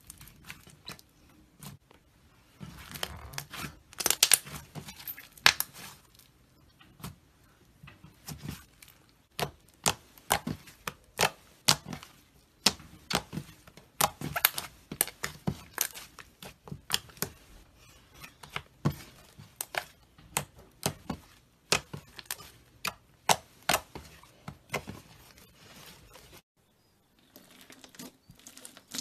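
Slime being handled, giving a run of sharp, irregular sticky crackles and pops, with a brief break near the end.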